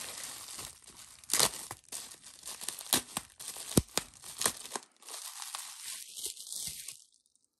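Bubble wrap crinkling and rustling as it is pulled off a small glass bottle, with a few sharp crackles. The handling dies away near the end.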